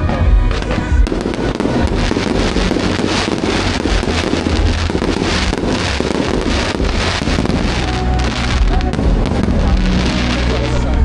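Aerial fireworks going off in a dense run of rapid crackles and pops, heaviest through the middle and thinning near the end, over loud music.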